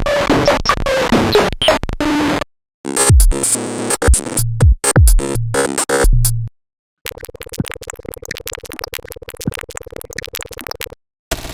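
A run of digital glitch sound effects, one after another with brief gaps of silence. First comes a dense crackling stutter, then a stretch of quick falling low sweeps, then a rapid clicking buzz over a steady hum. A short burst of static-like noise starts right at the end.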